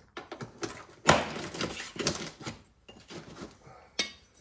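Metallic clinks and knocks as an aluminum cover strip is pried and pulled off the bottom track of a vinyl sliding door frame, with a sharp knock about a second in and another near the end.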